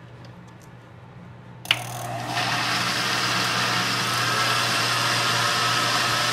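Countertop electric blender switched on with a click about a second and a half in, its motor spinning up within about half a second and then running steadily at speed, whipping cream and sweetened condensed milk in the glass jar. Before it starts, a few faint clicks as the jar is handled on the base.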